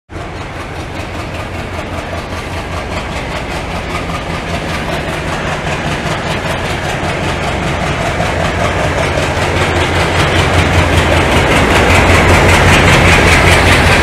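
A train rolling closer and growing steadily louder: a low locomotive hum under a rapid, rhythmic clatter of wheels on rail joints.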